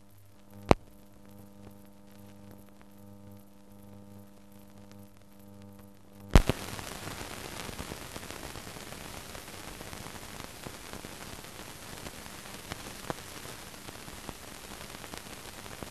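Noise of an old newsreel film soundtrack: a steady mains hum with a sharp click a little under a second in, then a loud pop about six seconds in, after which crackling hiss takes over.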